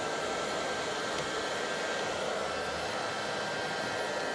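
Robot vacuum cleaner running on its own: a steady whirr from its suction fan, with a faint motor whine, as it drives across a stone countertop.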